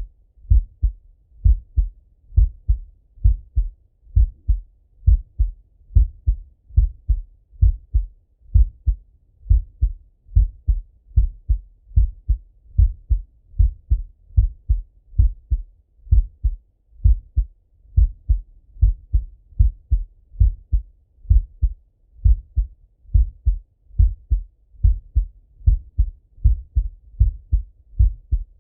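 A man's heartbeat heard through a Littmann stethoscope: steady, even lub-dub beats, about one a second, deep and low.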